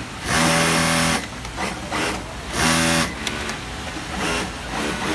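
Industrial sewing machine running in two short bursts as a seam is stitched in disposable gown fabric: the first about a second long, the second shorter, about two seconds later.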